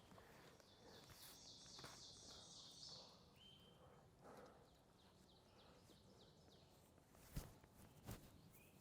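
Faint bird calls, a rapid series of short high notes fading over the first few seconds, then a few more scattered notes, in near silence. A couple of soft knocks come near the end.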